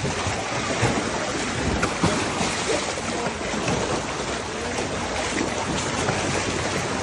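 Pool water churning and splashing as a crowd of seals swims fast around it, a steady rush of water with a few sharper splashes in the first couple of seconds.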